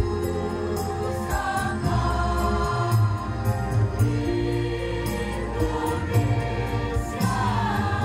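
Mixed choir of men and women singing together in slow, held notes.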